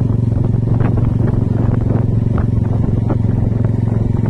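Motorcycle engine running steadily at an even cruising speed, heard from on the bike itself.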